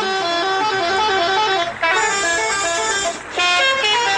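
Tour bus's multi-tone musical horn (a 'telolet' horn) playing a quick melody of changing notes, in three phrases with short breaks between them.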